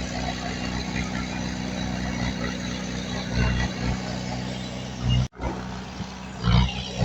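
Diesel engine of heavy earthmoving machinery running steadily, with brief louder surges; the sound drops out for an instant about five seconds in.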